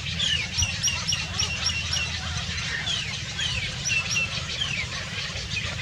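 Small birds chirping: several quick downward-sliding chirps, with a fast run of about eight repeated high notes starting about half a second in, over a steady low rumble.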